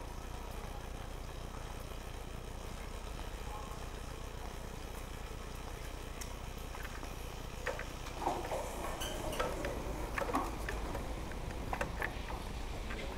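Electric scooter rolling with a low steady hum. From about eight seconds in come scattered clicks and knocks as it moves from the smooth indoor floor out onto paving.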